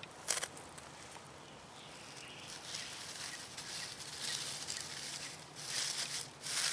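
Bird's nest tinder (dry grass and moss) burning after catching from a ferro rod spark: a hiss that swells and fades several times, with one sharp click right at the start.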